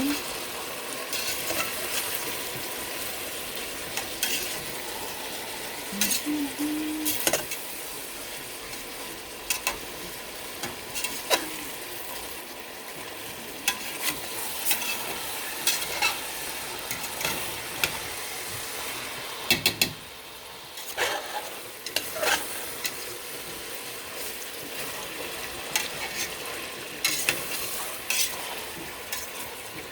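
Chicken pieces sizzling in a frying pan while a utensil stirs them, with irregular clicks and scrapes of the utensil against the pan over a steady hiss.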